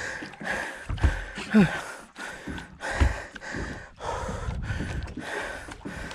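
Heavy, gasping breaths of an angler straining while fighting a fish on a jigging rod, in irregular bursts.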